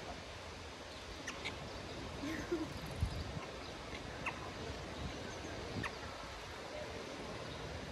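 Steady background noise with a few faint, short chirps and clicks scattered through it, and a soft low thump about three seconds in.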